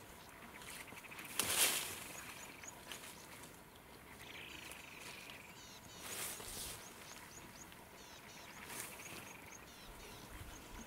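Elephant's trunk rustling through the leafy branches of a bush as it feeds, in three short bursts, the loudest about one and a half seconds in. Small birds chirp with quick, repeated high notes throughout.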